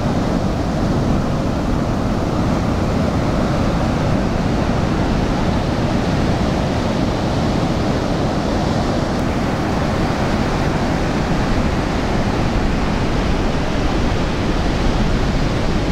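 Ocean surf breaking and washing up a sandy beach: a steady rush with no single wave standing out, with wind on the microphone.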